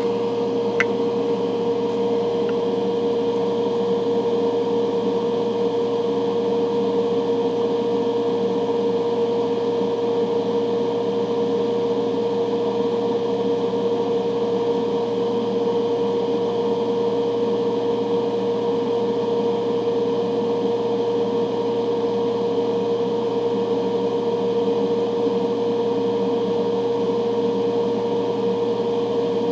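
Fume-extraction fan running steadily: a constant hum with a steady mid-pitched whine.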